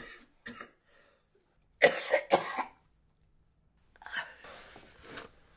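A man coughs twice in quick succession, harshly, about two seconds in, then lets out a long noisy breath.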